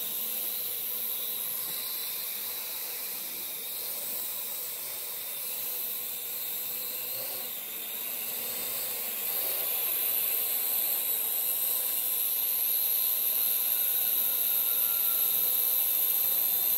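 Parrot AR.Drone quadcopter's four electric rotors running in flight: a steady hiss and high whine, getting a little louder about nine seconds in.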